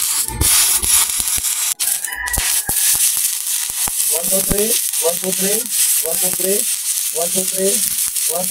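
Stick (shielded metal arc) welding with a 1/8-inch E7018 electrode at 100 amps on the final pass: the arc gives a steady hissing crackle with scattered sharp clicks.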